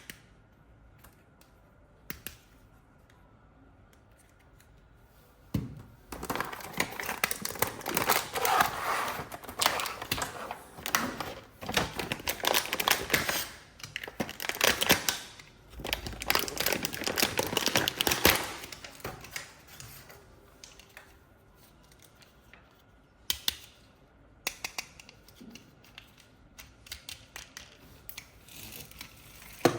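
Toy packaging being handled and opened: a few sharp clicks, then about 13 seconds of dense rustling and crackling, then scattered clicks again.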